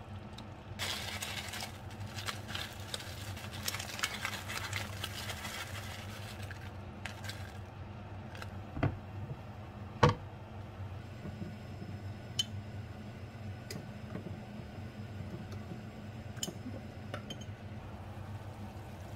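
A wooden spatula scrapes and dabs sauce around a nonstick frying pan. Then comes a pair of sharp knocks as a glass lid is set down on the pan, the second the louder. After that the covered pan simmers with faint scattered ticks over a low steady hum.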